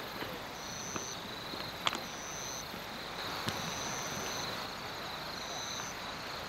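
Night insects calling: a high trill that repeats about every second and a half over a steady pulsing chirr. Two sharp clicks come about two and three and a half seconds in.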